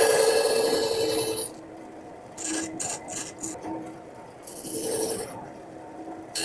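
Carving tool cutting into a woodblock for a print, with scraping strokes: one long stroke, then a quick run of short cuts in the middle, then another stroke near the end.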